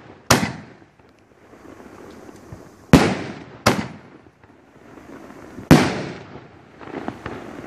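An 18-shot fireworks cake firing aerial shells that burst overhead: sharp bangs at uneven gaps, four in all with another right at the end, each echoing, with a low hiss between them.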